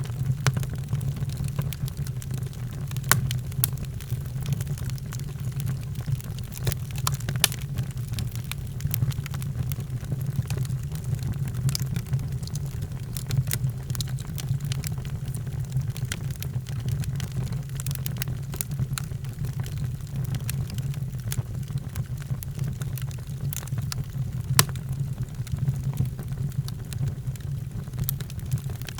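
Wood fire burning in a fireplace: a steady low rumble of the flames with frequent sharp crackles and pops scattered throughout.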